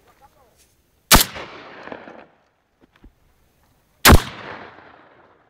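Two loud shotgun shots about three seconds apart, each with a sharp crack followed by an echo that dies away over about a second.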